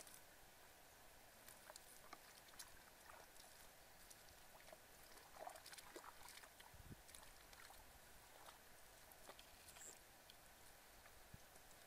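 Near silence: faint outdoor background hiss with scattered soft clicks and ticks.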